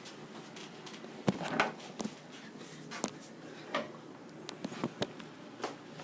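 Scattered light clicks and knocks, irregular, about a dozen of them, the sharpest two a little over a second in, over a faint steady hiss.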